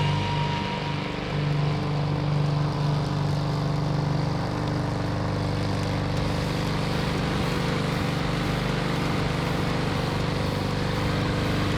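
Small gas lawnmower engine running steadily at an even speed.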